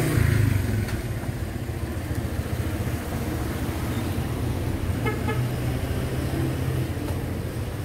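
City street traffic: a motor vehicle's engine running close by, loudest at the start, with a short high-pitched beep about five seconds in.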